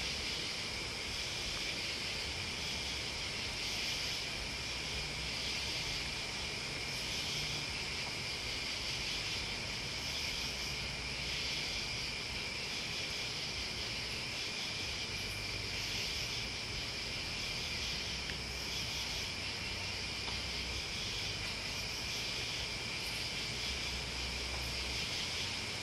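Night chorus of crickets and other insects: a steady, high-pitched trilling at two pitches that holds unbroken, with a faint low hum coming and going underneath.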